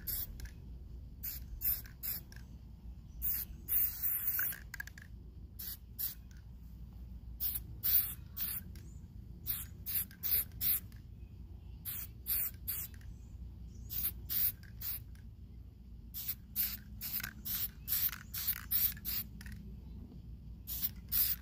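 Aerosol spray paint can sprayed in many short hissing bursts, in quick clusters, with one longer spray about four seconds in.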